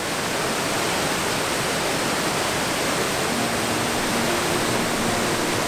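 Waterfall pouring into a creek pool: a steady, loud rush of falling water.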